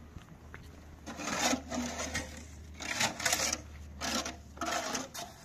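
Steel trowel scraping and smoothing wet concrete against a steel edge form, in about five rasping strokes roughly a second apart, starting about a second in.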